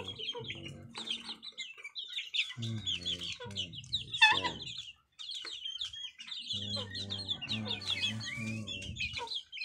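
A mixed flock of chickens feeding: chicks peep in a dense, continuous high chorus while hens and roosters cluck, with one falling squawk a little past midway. A low hum comes and goes three times underneath.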